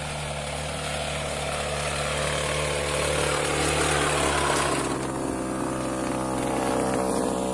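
Motorized Tasco TF 820 knapsack sprayer running steadily, driving mist out of a modified six-nozzle spray boom: a steady drone with a hiss over it. It cuts off suddenly at the end.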